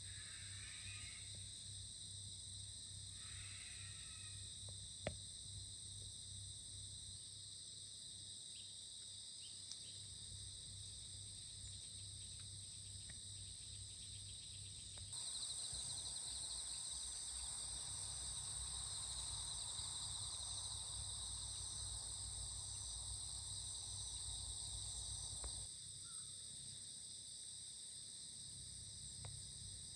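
Outdoor insect chorus: a steady, many-layered high-pitched chirring over a low hum. A few short chirps come in the first seconds and one click near 5 s. About halfway through, the chorus grows louder and a band of hiss joins it for roughly ten seconds, then drops back.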